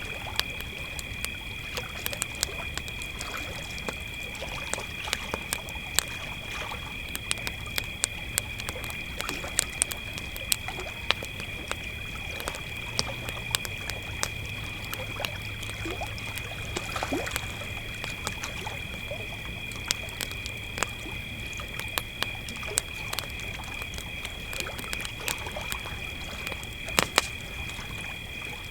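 Crickets trilling steadily and unbroken, with a campfire's wood crackling and popping in sharp irregular snaps throughout; a cluster of louder pops comes near the end.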